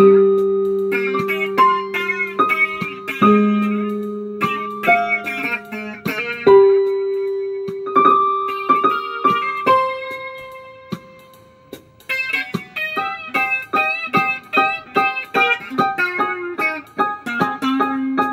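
Electric guitar played solo: picked chords and single notes left to ring for a few seconds each, fading out about halfway through, then a quicker run of picked notes.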